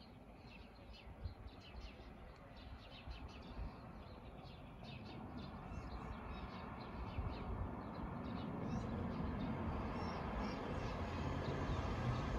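Small birds chirping in many short, quick calls over a low background rumble that grows steadily louder through the second half.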